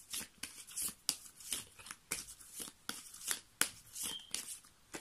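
A deck of divination cards being shuffled by hand: irregular soft slaps and rustles as the cards are cut and pass over one another.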